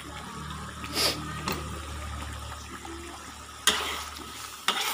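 Metal spoon stirring a watery spice broth in a steel wok: liquid sloshing, with a few sharp scrapes and knocks of the spoon against the pan, the loudest about three-quarters of the way through.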